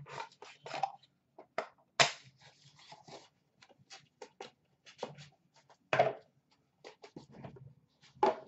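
Hands handling cardboard card boxes and packs on a counter: scattered light taps, scrapes and rustles, with two sharper knocks about two and six seconds in.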